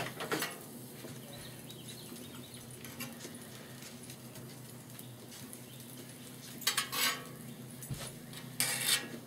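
A metal spatula scraping twice across a steel flat-top griddle, spreading melting butter, over a low steady hum.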